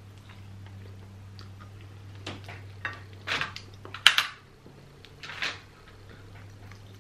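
Quiet chewing, then a plastic fork scraping and clicking against the plate as rice and beans are scooped up. A single sharp click about four seconds in is the loudest sound.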